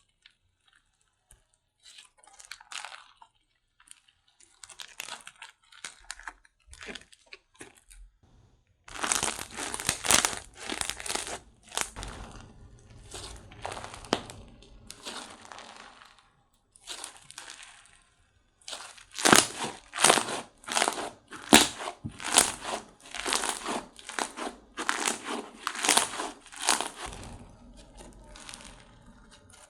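Slime being squished, pressed and stretched by hand close to a clip-on microphone, in a long run of short noisy presses. It is soft at first, much louder from about nine seconds in, pauses briefly past the middle, then picks up again.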